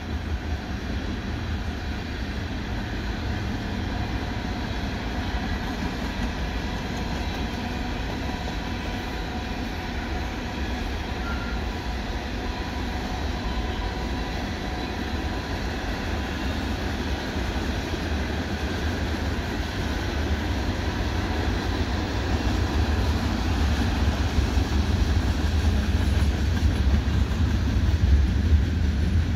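Freight cars of a mixed train (tank cars, covered hoppers, gondolas) rolling past: a continuous low rumble of steel wheels on rail, growing louder over the last part.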